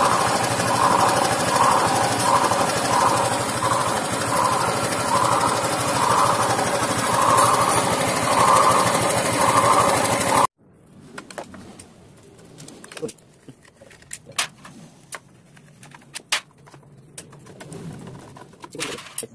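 Honda Vario 125 scooter engine running rough with a growling 'ngorok' noise, pulsing a little more than once a second. About ten seconds in it cuts off abruptly, leaving only faint clicks and knocks.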